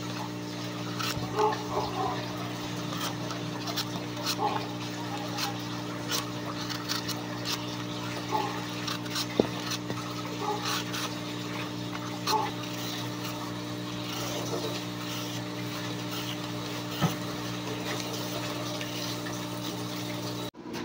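Hand-held vegetable peeler scraping the skin off an apple and then a carrot, in many short irregular strokes, over a steady low hum.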